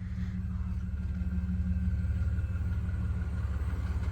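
Jeep engine running steadily at low trail speed: a deep, even rumble, with a faint high whine joining about a second in.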